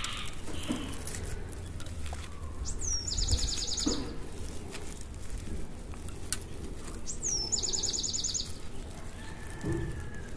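A bird sings twice, about four seconds apart; each phrase is a quick downward slur followed by a rapid high trill lasting about a second. Under it, faint rustling and crackling of dry soil being crumbled out of a succulent's root ball by hand.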